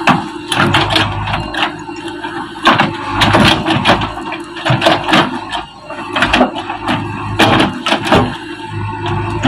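Diesel engine of a JCB backhoe loader running, with many irregular knocks and clattering impacts over it.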